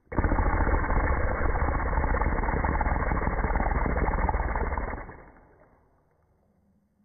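Breath blown hard onto a phone's microphone and slowed down by slow-motion playback, giving a deep, steady rush of air noise. It starts suddenly, holds for about five seconds, then fades away.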